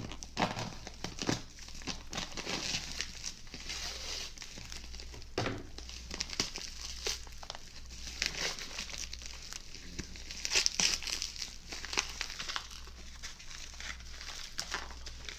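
Bubble wrap crinkling and rustling as hands rummage through it and lift out a wrapped package, with many small sharp crackles throughout.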